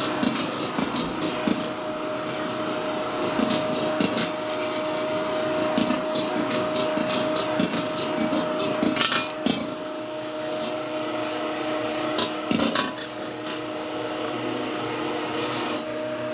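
Metal spatula scraping and clanking against a wok as fried rice is stir-fried and tossed, over the steady noise of a gas wok burner and a constant hum. The scraping stops shortly before the end.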